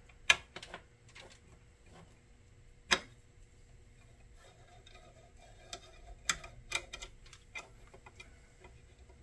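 Small, sparse clicks and taps of hands and a precision screwdriver working on a laser engraver's module. One sharper tap comes about three seconds in and a quick run of clicks follows a few seconds later.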